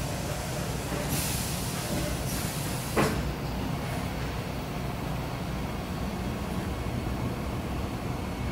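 Steady low machinery hum, with two short bursts of high hiss in the first three seconds and a single sharp knock about three seconds in.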